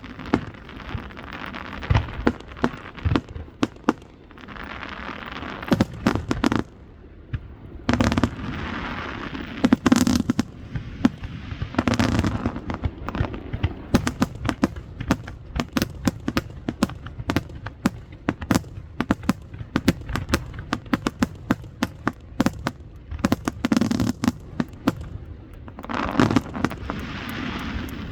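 Aerial fireworks bursting: many sharp bangs, coming thick and fast through the middle, with several stretches of hissing crackle between them.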